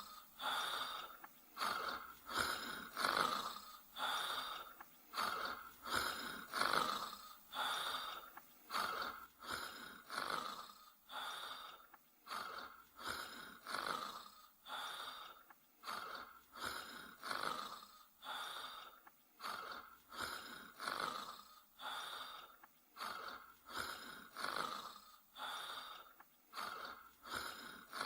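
Dog snoring in its sleep, a quick, even rhythm of about one snoring breath a second. Each breath carries a thin whistling note.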